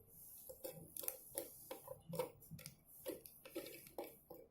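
Light, irregular clicking and tapping of the small plastic parts of a DIY candy kit being handled, a few taps a second.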